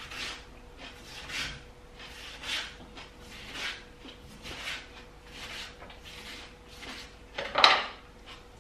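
Kitchen knife slicing through watermelon on a wooden cutting board, a crisp cut about once a second, with a louder clatter near the end.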